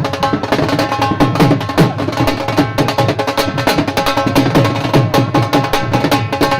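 Dhol drumming: a fast, dense rhythm of strokes several times a second, played loud and without a break.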